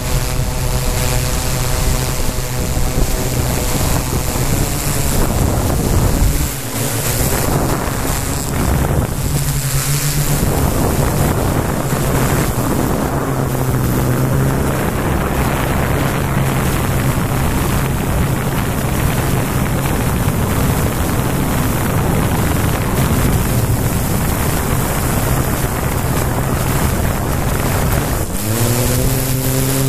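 Quadcopter drone's motors and propellers whining, with wind rushing over the onboard camera's microphone. The whine shifts in pitch about a third of the way in and rises near the end as the motors speed up.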